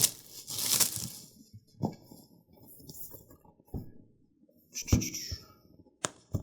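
A razor knife slitting packing tape on a cardboard box, a scratchy rasp in the first second, followed by scattered knocks, taps and rustling as the box is handled.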